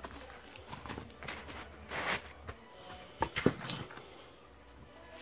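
Light handling sounds on a workbench as a foam wing core and small tools are moved: a soft rub about two seconds in, then a few sharp clicks and taps about a second later.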